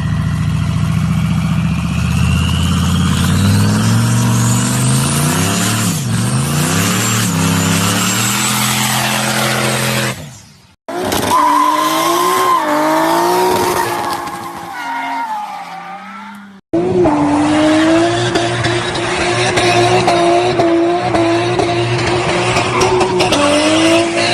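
Turbocharged car engines revving: the pitch climbs and falls several times, with abrupt cuts between clips. After the last cut, one engine is held at high revs with a slight waver.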